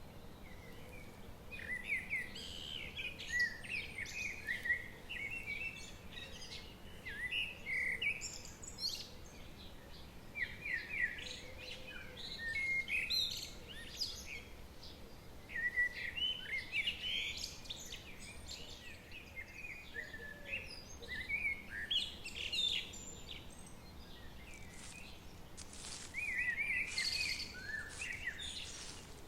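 Forest birds singing and calling: many short chirps and trilled phrases, several birds at once, over a faint steady background hiss.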